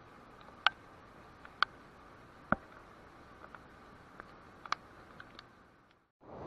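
Scattered sharp ticks and taps, about a dozen at uneven intervals over a quiet background, the loudest in the first three seconds. The sound fades out near the end, and a louder steady rush cuts in at the very end.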